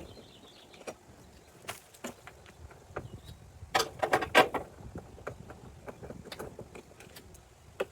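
Scattered clicks and light knocks from unscrewing an RV entry-door lock with a Phillips screwdriver, with a cluster of louder clicks around the middle.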